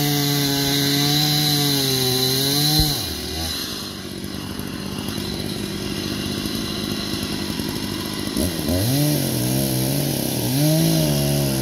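Chainsaw cutting through a fallen tree: it runs steadily at high speed, drops to idle about three seconds in, then revs back up near the end with its pitch wavering as it works into the wood.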